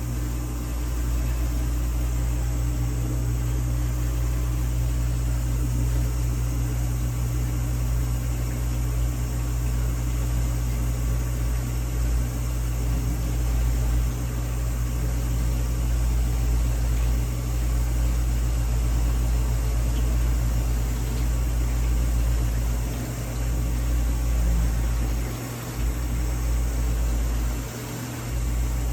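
Vintage dishwasher's pump motor running steadily in a wash cycle: a low hum with a few brief dips near the end. The owner thinks the pump sounds restricted, with the water no longer hitting the tub at full force.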